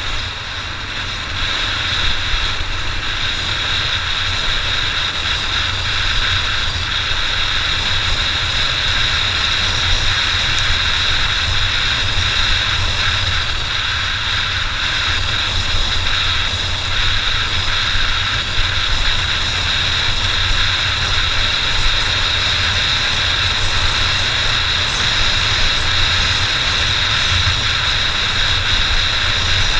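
Honda XR600 enduro motorcycle's single-cylinder four-stroke engine running steadily under way, with a constant low rumble and no pauses.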